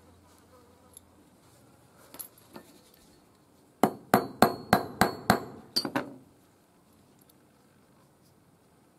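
A hand hammer striking a small steel swivel part held on a steel block: about eight quick, sharp metallic blows, roughly four a second, starting about four seconds in. Before that, a few light metallic clinks as the parts are handled.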